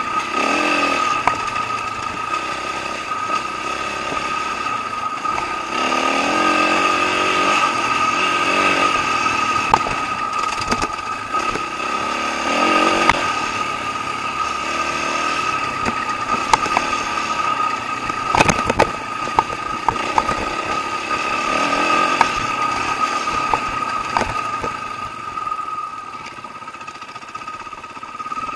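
Dirt bike engine running under way on a rough trail, its note rising and falling with the throttle, with scattered sharp knocks.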